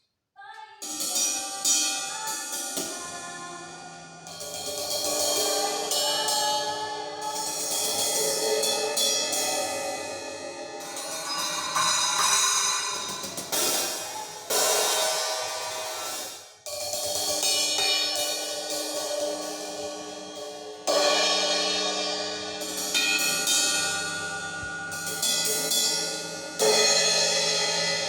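Music with drums, hi-hat and cymbals played back through the Armada Trojan B8 in a sound test, with sharp changes of section several times.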